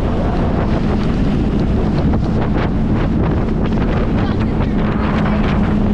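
Wind buffeting the microphone of a camera on a towed inflatable tube, with water splashing and slapping against the tube as it skips across a boat's wake. A steady low hum runs underneath.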